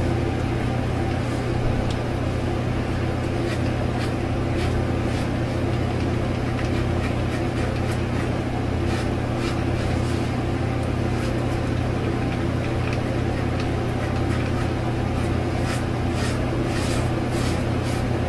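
Steady hum of an electric fan, with faint, short scraping strokes of a cartridge razor dragged lightly across a lathered scalp, more of them near the end.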